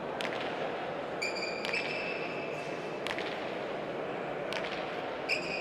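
Sharp single knocks of a hard pelota ball on a frontón court, spaced a second or more apart. Two drawn-out high squeaks of shoes on the court floor are heard over a steady background hiss.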